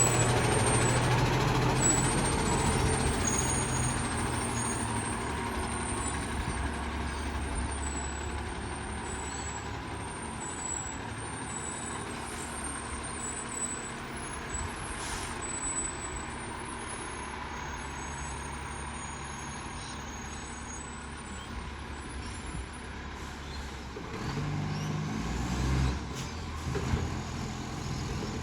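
Rubbish truck's diesel engine running with an exhaust leak, gradually fading as the truck moves away. Another engine sound swells briefly near the end.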